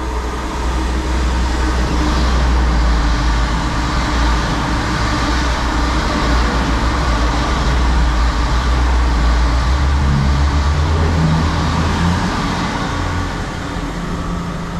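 Two coupled East Midlands Railway Class 222 Meridian diesel multiple units passing through the station at speed: a deep diesel engine rumble and rail noise that swells as the train comes in and runs by, easing slightly near the end as it draws away.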